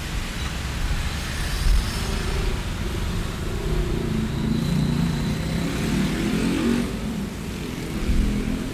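Street traffic: vehicles passing with steady road noise and low rumble, one engine note swelling through the middle and fading out near the end.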